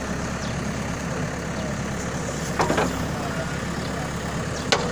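Backhoe loader's diesel engine running steadily with a low rumble, with two sharp knocks, one near the middle and one near the end.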